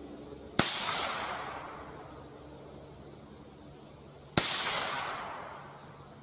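Two rifle shots from an AR-15, a little under four seconds apart, each followed by a long fading echo.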